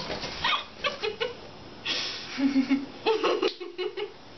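Two young women making short wordless vocal sounds: breathy bursts and a few brief voiced squeals and laughs.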